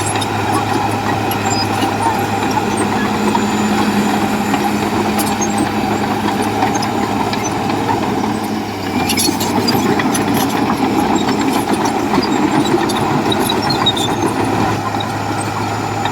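Heavy diesel earthmoving machine running steadily, its engine note shifting about nine seconds in, with a few scattered clinks.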